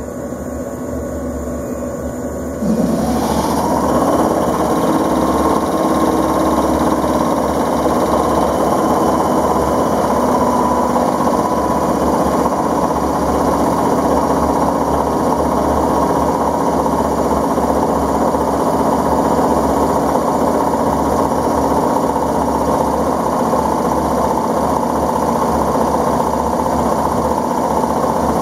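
MH113-C2000-type electric air compressor under a 485-series train car starting up a few seconds in: it spins up with a quick rising whine, then runs steadily with an even machine hum.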